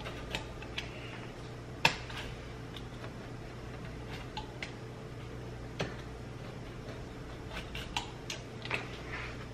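Rolling pizza cutter slicing crisp naan flatbread pizza on a wooden cutting board: scattered crunches and clicks as the crust breaks, the loudest about two seconds in, over a low steady hum.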